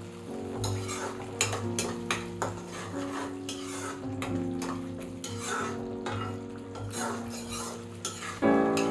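Metal kitchen utensils clinking and scraping against a cooking pot, many short sharp clicks, over soft background music with slow sustained notes.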